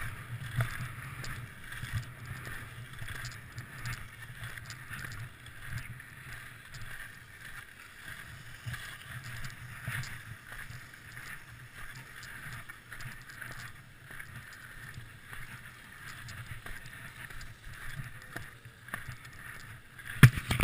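Skis sliding and carving over groomed corduroy snow, a steady hiss and scrape. A few sharp knocks near the end.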